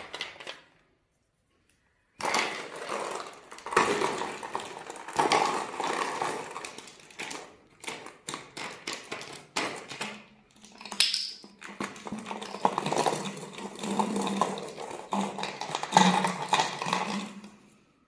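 A raccoon working a plastic soda bottle with its paws and teeth: dense crackling and clicking of the plastic, as it twists and bites the cap off. A low steady hum joins in from about ten seconds in.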